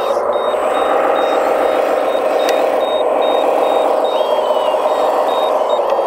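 Reversing beeper of a 1/14-scale RC construction vehicle sounding a rapid, even series of high beeps over the steady engine-like drone of the RC machines. There is one sharp click about halfway through.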